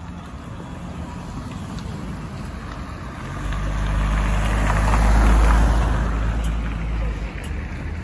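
An SUV driving past close by on the street, its engine and tyre noise rising to a peak about five seconds in and then fading away.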